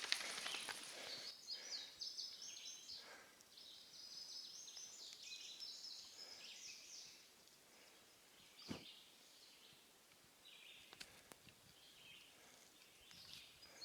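Faint woodland birdsong: short, high chirping phrases repeating through the first half and again near the end, with a sharp click about nine seconds in and a couple of fainter clicks a little later.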